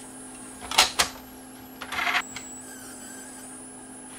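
Two sharp clicks about a second in, then a short whirring rustle near two seconds, from an opened CD player being operated: button presses and the linear-tracking pickup mechanism moving as it seeks a track.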